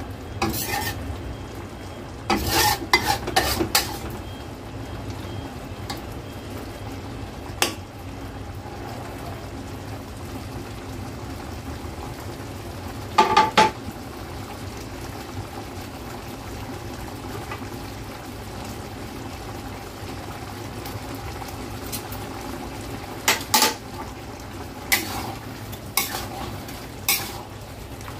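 Metal spatula scraping and clinking against a stainless steel wok while seafood in a thick sauce cooks with a steady sizzle. Sharp clatters of the utensil come in short clusters a couple of seconds in, midway and again near the end.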